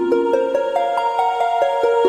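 Soft new-age background music of plucked, harp-like notes running up and down in quick arpeggios, several notes a second.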